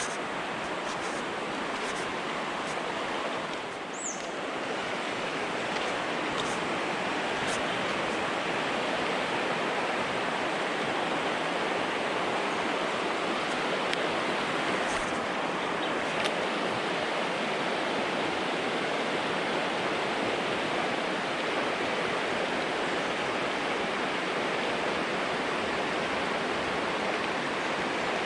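Steady, even rush of stream water running through the whole stretch.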